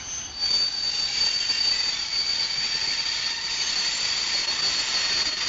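Container freight train wagons rolling past on steel rails, their wheels giving a steady high-pitched squeal over the rolling noise. The sound jumps louder about half a second in and then holds steady.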